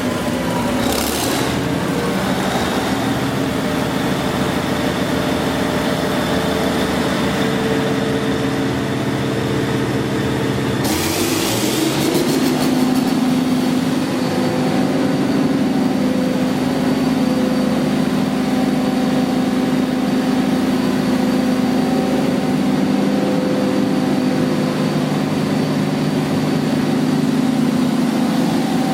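Large Cummins diesel engine of a 1000 kW generating set running steadily. About eleven seconds in there is a short hiss and the engine note rises, then holds steady at the higher pitch.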